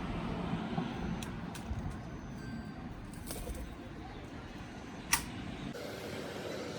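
Oriental turtle dove sounds at the nest: soft dove calls over a steady background hum, with a sharp click about five seconds in.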